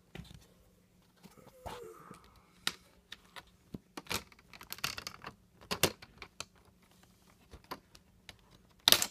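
Plastic screen bezel of a Dell Inspiron 1545 laptop being pried off its lid: scattered clicks and crackles as its clips let go, with a louder snap near the end as it comes free.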